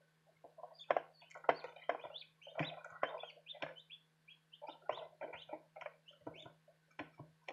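Newly hatched Light Brahma chicks peeping in a rapid, irregular run of short calls mixed with sharp knocks, starting about half a second in, over the incubator's steady low hum.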